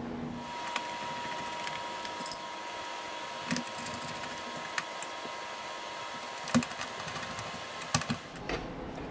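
Scattered sharp clicks from a hand screwdriver turning screws into the plastic housing of a 1972 Chevrolet C10 instrument cluster, over a steady low hiss with a faint high whine.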